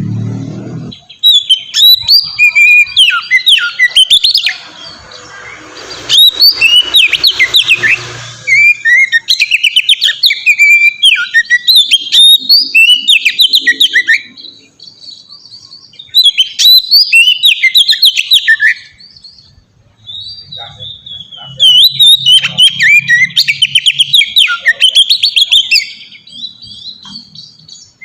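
Oriental magpie-robin (kacer) singing: loud phrases of quick, varied whistles and trills, coming in several long bursts with short pauses between them.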